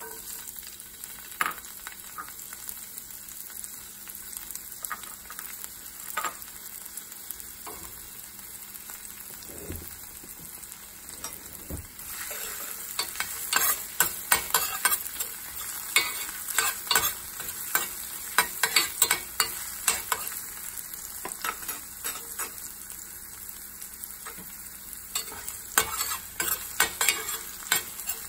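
Chopped red onion and garlic sizzling in oil in a stainless steel pan. From about twelve seconds in, a metal spoon scrapes and clinks against the pan as the onion is stirred.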